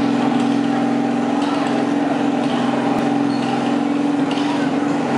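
Riding lawn mower engine running at a steady speed, its pitch holding even throughout.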